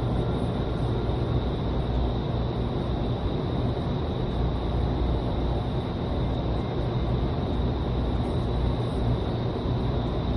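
Indoor skydiving wind tunnel running: a steady rush of fan-driven air with a faint steady high whine above it, heard from outside the glass flight chamber.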